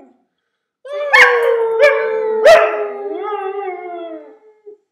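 Siberian husky howling ("singing"), starting about a second in. It holds a long howl that slowly falls in pitch, breaks it with three sharp rising yelps, then wavers.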